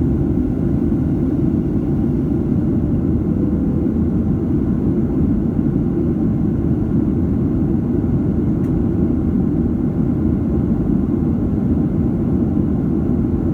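Steady cabin noise of a Boeing 737-700 in the climb: the engines and airflow make an even, low rumble heard from inside the passenger cabin.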